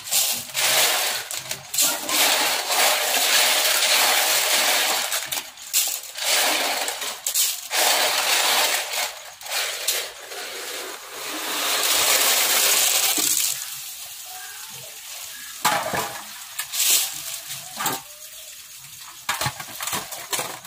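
Blood cockle shells clattering against one another and the steel basin as they are stirred in water and scooped by the handful into a plastic basket. The rattling is dense for roughly the first two thirds, then thins to scattered clicks.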